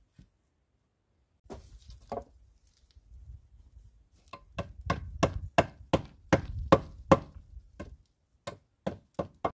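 Hatchet chopping at a peeled wooden pole: two blows, a pause, then a run of about a dozen sharp blows at two to three a second, spacing out near the end.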